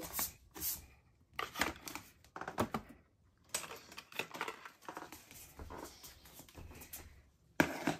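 Toy groceries being handled and put into a small metal wire shopping basket: a string of light, irregular clicks, knocks and rustles, a little louder near the end.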